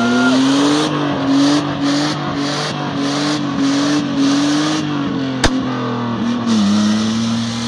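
Nissan RB25 straight-six engine held at high revs under load off-road, its pitch wavering up and down and dropping slightly about six and a half seconds in. A pulsing hiss runs over it, and there is one sharp click about five and a half seconds in.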